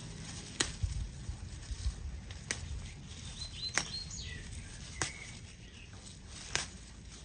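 Fresh herb stems snapped off by hand, five sharp snaps spaced a second or more apart, with leaves rustling between them.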